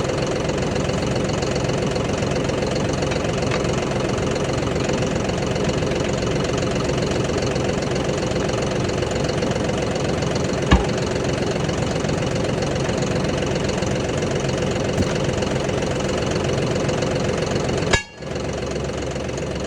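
An engine running steadily at idle, with one sharp click about eleven seconds in and a brief drop-out near the end.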